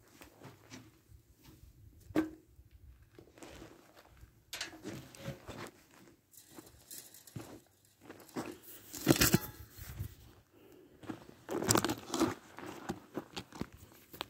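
Rustling and crackling handling noise from a handheld phone being moved and rubbed, irregular throughout, with two louder scraping bursts about nine and twelve seconds in.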